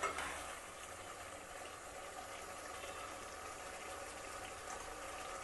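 Chicken curry simmering in an open pot on the stove: a soft, steady bubbling hiss.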